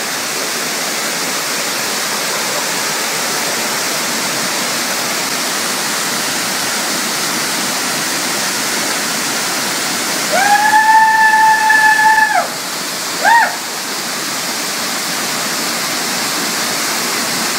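Waterfall rushing steadily. About ten seconds in, a long, steady high-pitched call holds for about two seconds over the water, followed by a short one a second later.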